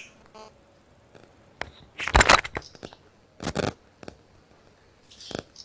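A sheet of paper being handled: a few short rustles and clicks, the loudest cluster about two seconds in.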